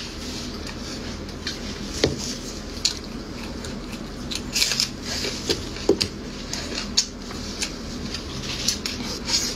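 Close-up eating sounds: wet chewing and lip smacking on fatty meat, with plastic gloves crinkling as the hands tear the meat, giving many short, irregular clicks and crackles.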